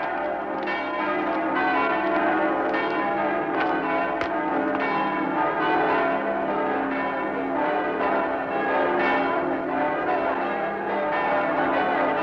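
Church bells ringing, several bells struck over and over so their tones overlap in a continuous peal.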